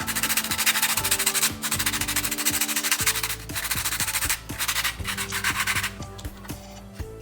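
Fast back-and-forth sanding strokes on a hard surface, pausing briefly twice and stopping about six seconds in, over background music.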